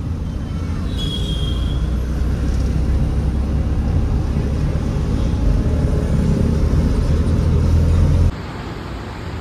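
Low, steady engine and road rumble heard from inside a Tata Nano's cabin while it is driven, growing slowly louder. It cuts off abruptly about eight seconds in, leaving a quieter background.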